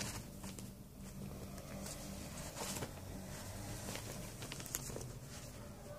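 Paper rustling as loose sheets and a booklet are handled and shuffled, in a few brief soft bursts over a faint steady low hum.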